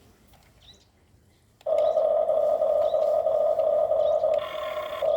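Faint bird chirps, then about 1.7 s in a small electric motor and gearbox of a radio-controlled toy construction machine starts with a sudden, loud, steady whine. Its tone shifts briefly near the end.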